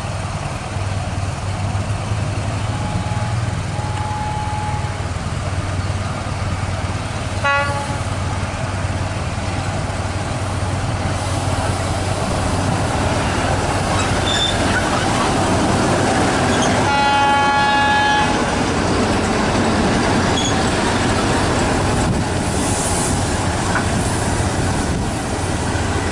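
Diesel locomotive engine running steadily as the locomotive approaches, growing louder. Faint short horn toots sound early on and once more about 7 seconds in, and a loud horn blast of about a second comes about two-thirds of the way through.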